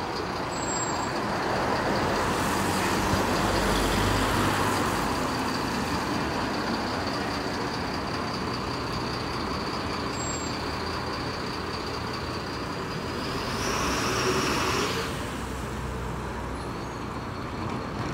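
Mercedes-Benz Econic bin lorry running and moving off, a steady engine and road sound with a thin high whine throughout. About fourteen seconds in, a louder burst of hiss lasts for about a second and a half.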